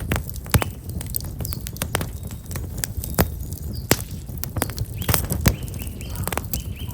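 Black locust firewood crackling in an open fire: sharp, irregular pops and snaps over a low steady rustle. Small birds chirp in short calls, several of them in the latter half.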